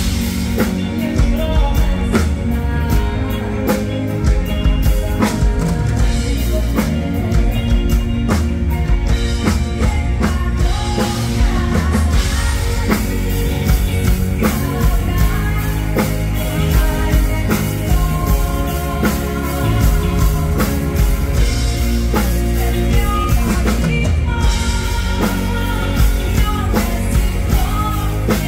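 Women singing into microphones over a full live band with drum kit, amplified through the stage sound system.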